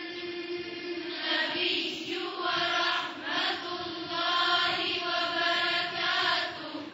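Soft chanting voice held on one steady pitch, the vowel colour shifting above it about once a second, quieter than the recitation around it.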